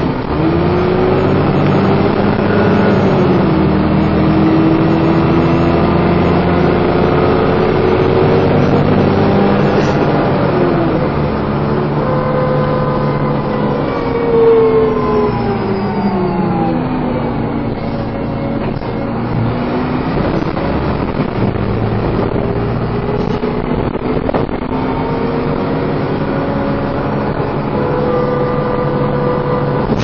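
Dennis Trident 2 double-decker bus heard from inside the lower deck, its drivetrain giving a vacuum-cleaner-like "hoover" whine as it is driven hard. The whine's pitch rises and falls several times as the revs climb and the gearbox shifts; the bus does not hold its gears well.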